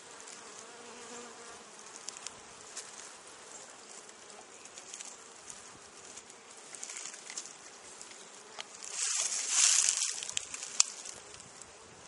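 Honeybees buzzing steadily around an opened hive, agitated after the box has been opened up near the queen. About nine seconds in, a louder burst of rustling noise rises and falls, followed by a single sharp click.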